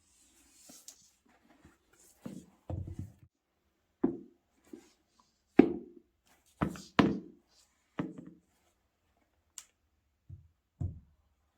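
Soft knocks and thuds from Nike Dunk High sneakers being handled and set against a surface, about ten irregular hits, with a brief light rustle near the start.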